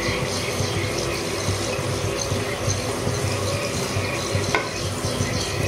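A mini samosa frying in hot oil in a black kadhai, with a steady sizzle, while a slotted metal spatula turns it in the pan, giving a light tap about four and a half seconds in.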